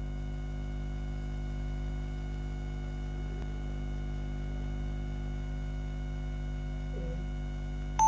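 Steady electrical mains hum: a low, even buzz with a stack of overtones above it.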